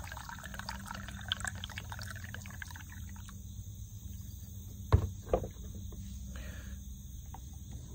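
Hot coffee pouring from a metal vacuum flask into its cup: a steady stream of liquid that stops about three seconds in. Two sharp knocks follow close together about five seconds in.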